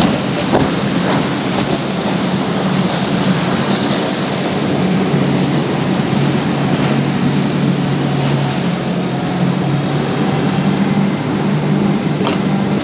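Powerboat engines droning as boats run through the inlet, over a steady wash of wind and surf. A second, lower engine tone joins about five seconds in, and a sharp click sounds near the end.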